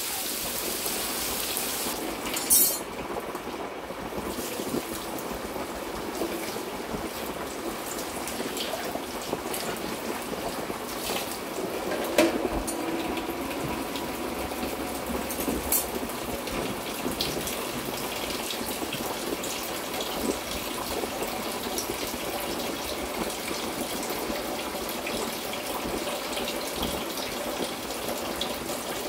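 Sole fish frying in coconut oil in a pan: a steady sizzle, with a few clicks and knocks, the loudest about twelve seconds in.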